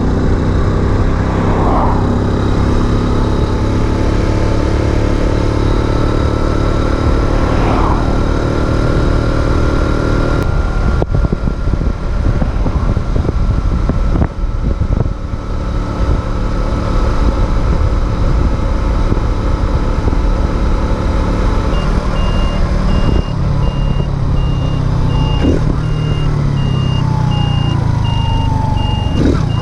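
Racer Alpha RC50 50cc four-stroke moped engine running under way, its revs rising and falling, with wind on the microphone. From about two-thirds of the way in, a steady, evenly spaced beeping repeats over it.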